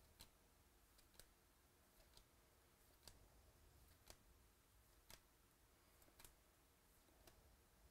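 Near silence with faint, sharp clicks of trading cards being flipped one at a time, about one a second.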